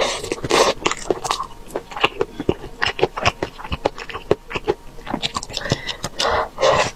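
Close-up eating sounds of a person eating braised chicken wings and vegetables from chopsticks: wet chewing and lip smacks making many short clicks, with two longer slurps as food goes into the mouth, at the start and about six seconds in.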